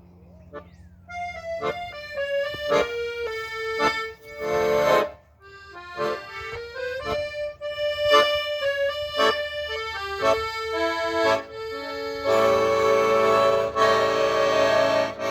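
Instrumental music: a melody of separate held notes, then loud sustained chords from about twelve seconds in.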